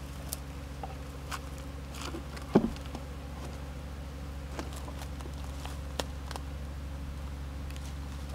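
Japanese honeybees buzzing in a steady low hum around the box hive, with a few light knocks and one sharp knock about two and a half seconds in.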